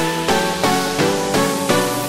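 Background music: pitched chord stabs repeating about three times a second.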